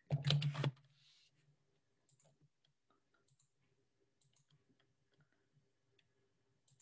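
A few faint, scattered computer mouse clicks against near silence.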